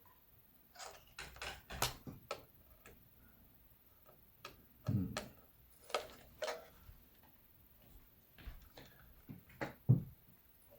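Small irregular clicks and taps of plastic and small metal parts as a drone controller's casing, SD card and hex screws are handled during disassembly, with a few duller knocks of the case being set down or turned over.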